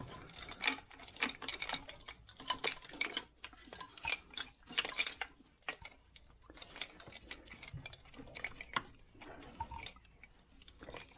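Irregular light clicks, taps and clinks of small parts and tools being handled, with no steady rhythm.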